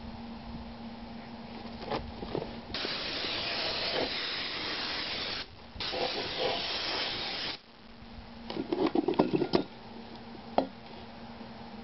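Compressed-air blast gun hissing in two bursts of about three and two seconds. Then clanks of a cast-iron exhaust manifold being lifted and set down on the ground, and one last knock.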